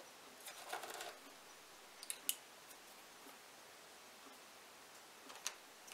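A few faint clicks and light taps as a glass paint-mixing jar and its lid are handled and set down on a desk, the main cluster about half a second in, with single clicks about two seconds in and near the end.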